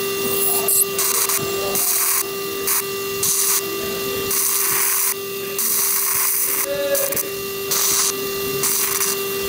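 Electrosurgical instrument dissecting tonsil tissue, hissing in repeated bursts of about half a second to a second as it is switched on and off, over a steady tone.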